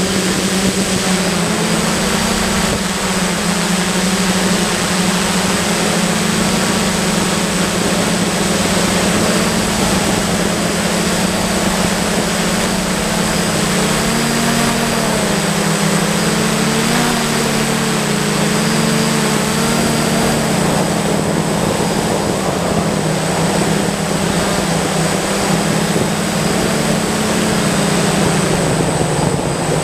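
DJI F550 hexacopter's six electric motors and propellers buzzing steadily, heard up close from the camera on board. The pitch wavers and shifts a little as the motor speeds change, over a thin, steady high whine.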